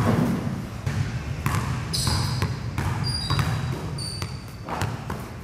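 A basketball bouncing on a gym floor in irregular thuds, with short high squeaks of sneakers on the floor among them.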